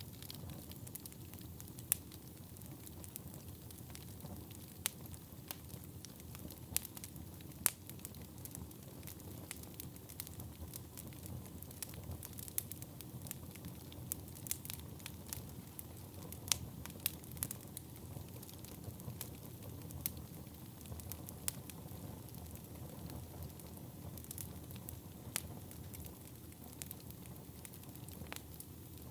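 Wood fire burning in a fireplace: a steady low rumble of flames with frequent irregular crackles and pops, a few much sharper than the rest.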